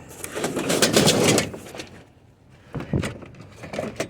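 Heavy flat-screen TV being manhandled into a truck: a noisy stretch of scraping and shuffling for the first second and a half, then, after a short lull, a few knocks and thuds near the end.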